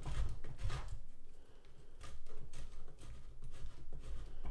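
Parmesan cheese grated on a stainless steel box grater: an uneven series of short scraping strokes, with a pause about a second in and a few low knocks at the start.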